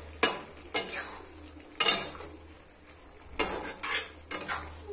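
A spoon stirring curry in a metal kadhai, knocking and scraping against the side of the pan at irregular intervals, the loudest knock a little under two seconds in.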